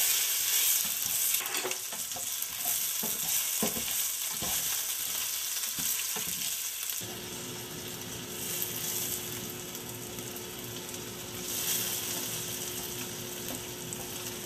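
Potato wedges, bay leaves, dry red chili and panch phoron frying in hot mustard oil in a nonstick pan, with a steady sizzle. A slotted spatula scrapes and taps against the pan as they are stirred, mostly in the first half. A faint steady hum comes in about halfway.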